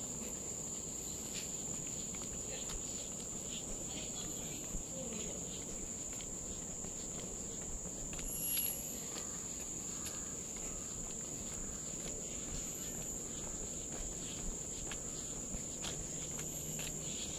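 A steady, high-pitched chorus of forest insects, with soft footsteps on a paved trail and a brief louder high chirp about halfway through.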